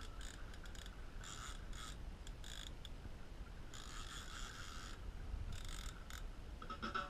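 Fishing reel worked under load with a fish on the line: about eight short, irregular spurts of reel noise, each under a second, over a steady low rumble.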